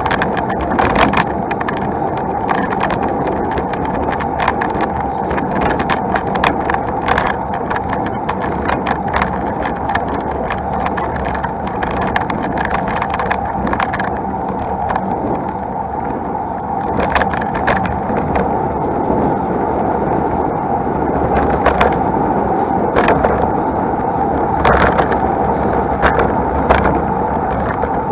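Road bike climbing on a paved road, recorded while riding: steady road and wind noise with frequent sharp rattles and clicks, dense over the first half and sparser later on.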